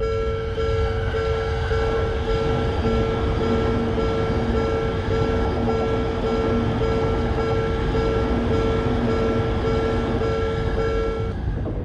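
Japanese level-crossing warning bell dinging in a fast, even rhythm while a train runs past with a low rumble. The bell stops just before the end.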